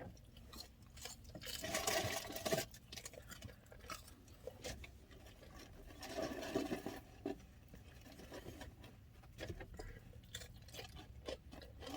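Quiet eating sounds: chewing crunchy fried food, with scattered small clicks and two short, louder noisy stretches.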